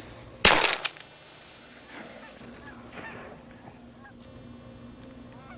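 A shotgun blast about half a second in, sharp and loud with a short ringing tail, fired at a bluebill (scaup) during a diver duck hunt.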